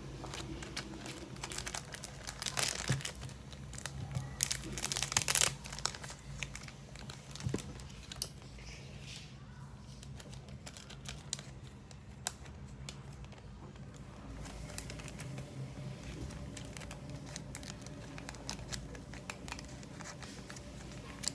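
Packaging being handled and crinkled by hand, with the loudest crinkling bursts in the first few seconds, then lighter scattered crackles and rustles.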